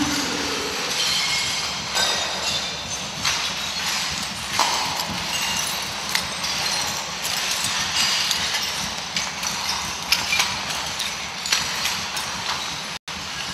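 Footsteps crunching over a floor of broken glass, with irregular sharp cracks and clinks over a steady grinding crunch.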